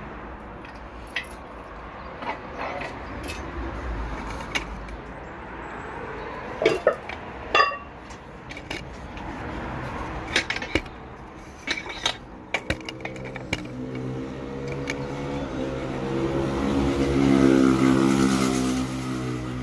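Scattered metallic clicks and knocks, then a vehicle engine running that swells in level over the last few seconds and eases off near the end.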